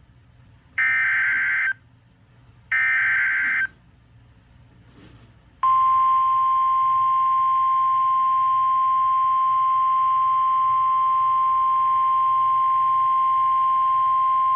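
Emergency Alert System SAME header: two bursts of digital data tones, each about a second long and a second apart. A few seconds later comes a single steady attention tone, the 1050 Hz NOAA Weather Radio alert tone, held for about nine seconds before it cuts off. Together they signal the start of a severe thunderstorm warning broadcast.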